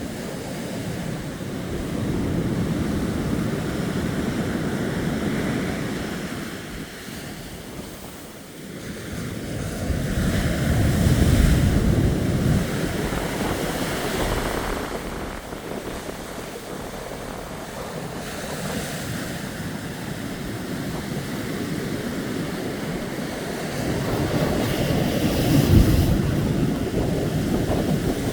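Sea waves breaking and washing on the shore, swelling louder twice, with wind buffeting the microphone in low rumbling gusts.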